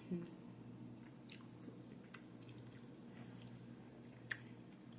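Faint close-up chewing of a mouthful of salad, with a few soft wet mouth clicks, the clearest one near the end.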